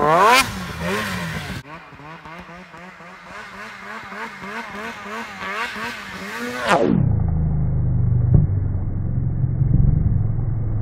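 Snowmobile engine revving up and down in quick waves as the sled jumps through powder. About seven seconds in the whole sound drops steeply in pitch into a deep, muffled rumble: the audio of a slowed-down, slow-motion replay of the jump.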